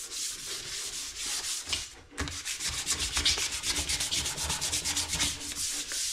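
Fine 600-grit sandpaper rubbed by hand in quick back-and-forth strokes along a torch-burnt hickory axe handle, knocking down the wood fibres raised by the burning. It is a rasping hiss with a short pause about two seconds in, followed by faster strokes.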